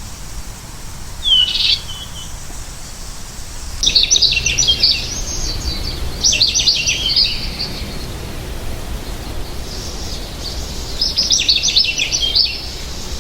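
American goldfinch calling and singing: a single short call about a second and a half in, then three bursts of rapid twittering song, over a steady low rumble.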